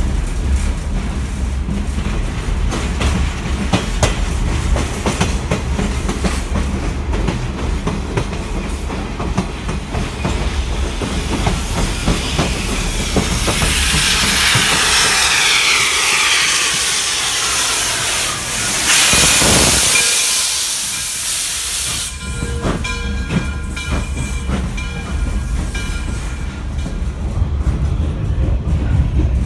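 A rail car in motion, heard from aboard: a steady low rumble with wheels clicking over rail joints. Through the middle a loud rushing hiss builds as another car passes close alongside, and it cuts off suddenly, followed by a few brief ringing tones.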